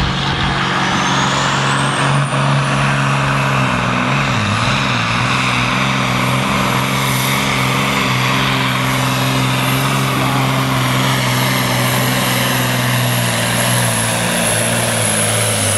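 Volvo pulling truck's diesel engine running flat out under load as it drags the weight sled. The engine holds a steady pitch, wavers briefly about a quarter of the way in and drops lower near the end. A high whistle climbs over the first few seconds and then holds.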